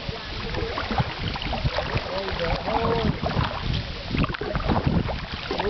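Paddling a plastic-bottle canoe along a canal: irregular paddle dips and small splashes, with wind rumbling on the microphone.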